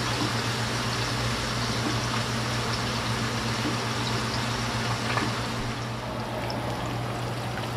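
Whole scored fish sizzling as it fries in hot oil in a pan on medium heat: a steady frying hiss with no let-up, over a steady low hum.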